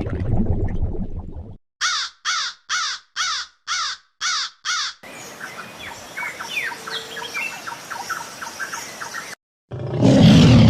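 A string of separate animal sounds. A low rumbling noise comes first, then seven short harsh calls like a crow's caws, evenly spaced at about two a second. Faint bird chirping and ticking follows, and a loud low roar starts about a second before the end.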